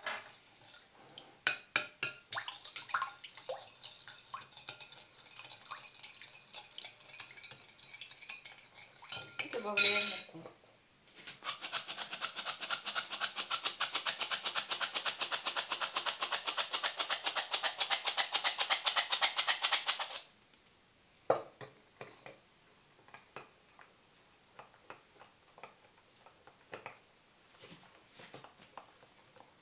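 A metal spoon stirring batter in a glass bowl, clinking against the glass. About eleven seconds in, a metal flour sifter starts up with a fast, even rasping tick that runs for about nine seconds and stops sharply, followed by a few soft clicks of mixing.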